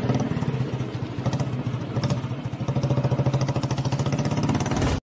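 Motorcycle engine running with an even, rapid beat, then cutting off suddenly at the end.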